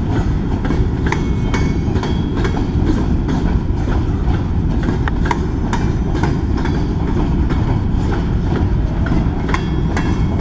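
A long string of covered hopper freight cars rolling past: a steady rumble of steel wheels on rail, with irregular sharp clicks and clacks from the wheels and a few brief, faint metallic rings.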